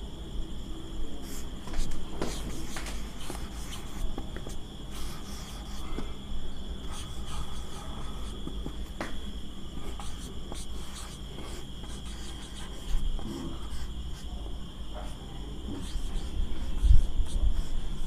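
Marker pen writing on a whiteboard in short scratching and squeaking strokes, over a steady high-pitched tone in the background.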